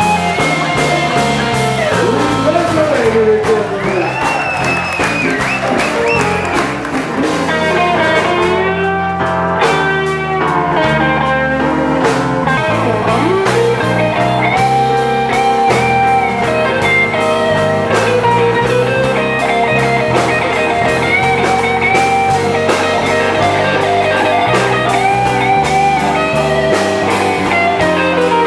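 Live blues band playing: a lead line on a semi-hollow-body electric guitar with bent and sliding notes, over bass guitar and drums.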